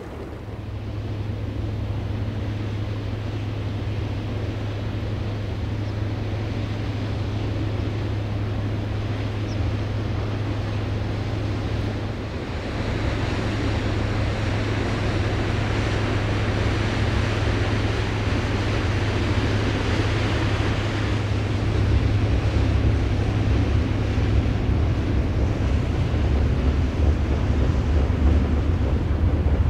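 Low steady drone of a passing cargo ship, mixed with wind rumbling on the microphone and water washing against the bank. The drone and wash grow louder toward the end as a container ship comes abeam.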